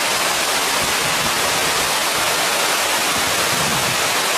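Steady rushing of a waterfall, an even wash of falling water with no breaks.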